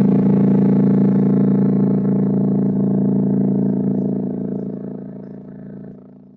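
Yamaha NS-SW200 subwoofer playing a 28 Hz test tone, the lowest frequency it is rated to reach, heard as a steady low drone with a stack of overtones. It starts suddenly and fades away over the last couple of seconds.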